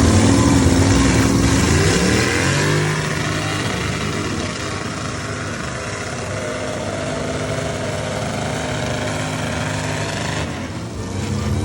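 Off-road truck engine revving hard at a truck pull for the first few seconds, then running steadily at lower revs.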